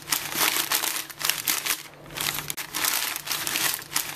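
A sheet of newspaper crumpled in the hands in crackling bursts, used as a foley imitation of footsteps crunching on snow. There is a short lull about two seconds in.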